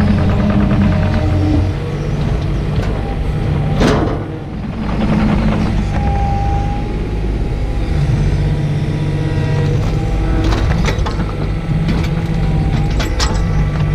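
Takeuchi TB125 mini excavator's diesel engine running under hydraulic load as the arm and thumb grab swing a heavy log and set it down. The engine note shifts a couple of times. There is a brief high whine about six seconds in, and several sharp knocks come around four seconds in and again near the end.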